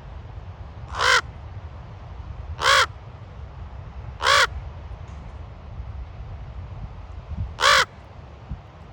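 Common raven giving four short, harsh croaking calls, spaced a second and a half to three seconds apart, over a steady low rumble.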